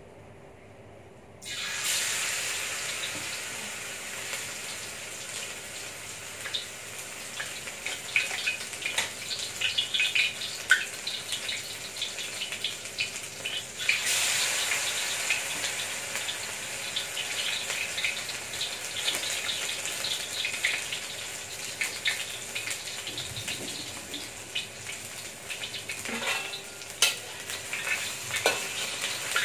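Battered enoki mushrooms sizzling and crackling in hot oil in a stainless steel wok. The sizzle starts suddenly about a second and a half in, when the first batch goes into the oil, and jumps louder again about halfway through as more are dropped in. Near the end a metal ladle clinks and scrapes against the wok.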